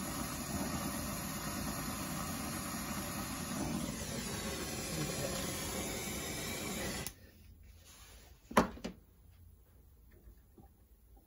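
Brazing torch flame burning with a steady rushing noise while brazing a copper line on a refrigerator compressor, cut off abruptly about seven seconds in. About a second and a half later comes a sharp knock, then a smaller one.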